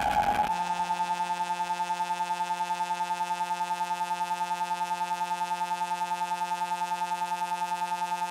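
Modular synthesizer patch: a noisy, chaotic texture cuts out about half a second in and gives way to a steady, buzzy drone with a fast, even pulsing in loudness.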